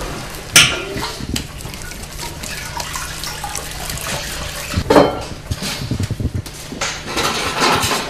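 Hand-working of bread dough over a metal basin and setting it into black metal baking tins: soft handling noise with two sharp knocks, about half a second and five seconds in, and light metal clatter near the end, over a low steady hum.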